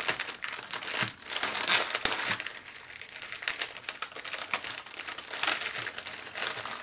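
Clear plastic packaging bag crinkling and rustling as hands open it and pull it off the items inside, in irregular bursts with louder spells about two seconds in and near the end.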